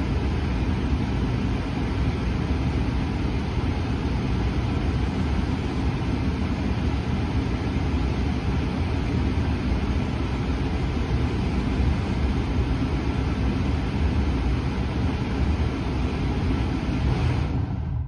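Tesla Model 3's cabin HVAC blower running hard during the service-menu HVAC self-test, a steady rush of air from the dash vents during the test's hot-air stage. It cuts off abruptly near the end as the test finishes.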